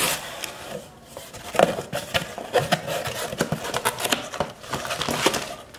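Cardboard shipping box being opened by hand: irregular scraping, tapping and knocking of the flaps, with rustling of the packaged items and cards inside.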